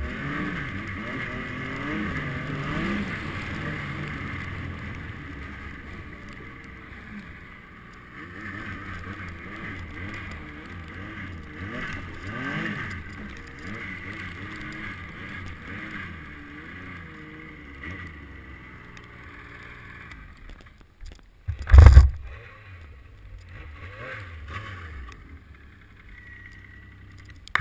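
Snowmobile engine running beneath the rider, its pitch rising and falling with the throttle. A single loud thump about three-quarters of the way through.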